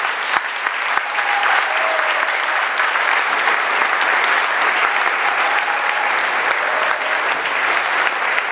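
Audience applause, dense and steady.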